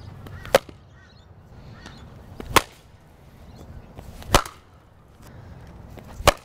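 Four sharp cracks of a cricket ball striking a willow cricket bat, about two seconds apart. The bat has glued-up cracks in its handle and blade.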